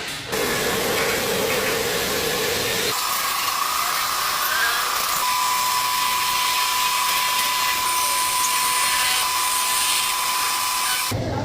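A small power tool running with a whirring hiss. About three seconds in it changes to a steady high-pitched whine, which cuts off abruptly near the end.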